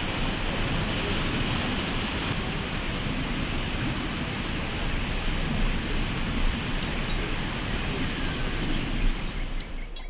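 Waterfall: heavy water plunging and crashing into a gorge in a steady rush, with a thin steady high tone and a few bird chirps over it, fading out near the end.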